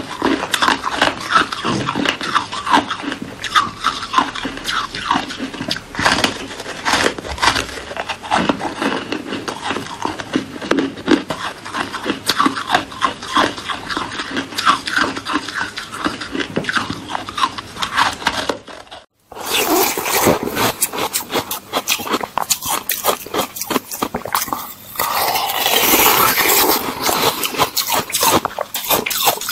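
Ice being bitten and crunched between the teeth, a dense run of sharp cracks and crunches as it is chewed. The sound cuts out briefly about two-thirds of the way through, then comes back louder and denser.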